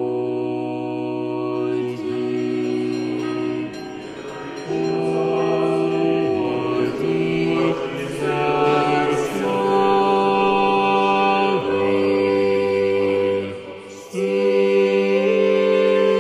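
A mixed choir singing slow Orthodox liturgical chant, holding full chords that change every second or two, with a short break about two seconds before the end.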